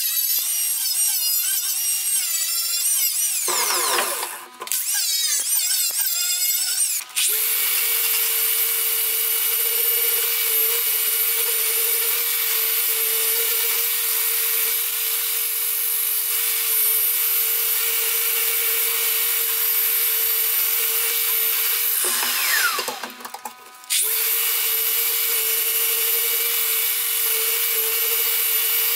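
Angle grinder working the rusty steel of a cleaver blade, its pitch wavering and briefly dropping away about four seconds in. From about seven seconds a Festool Rotex RO 150 sander runs steadily on the blade, sanding off the rust; it winds down with a falling pitch around twenty-two seconds in and starts again two seconds later.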